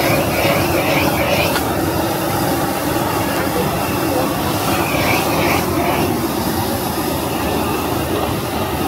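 Steady roar of a busy stir-fry kitchen: a commercial wok burner and extractor fan running, with voices in the background.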